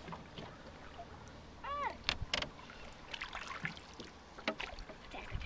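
Small boat on open water: water lapping at the hull, with scattered knocks and clicks against the boat. About two seconds in comes one short, high, rising-and-falling voice sound.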